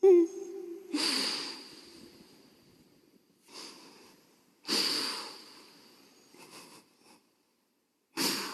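A man's sharp, gasping breaths: a brief catch of the voice at the start, then about five separate sudden intakes of breath, each trailing off. This is the sound of a Quran reciter weeping and breaking off mid-recitation.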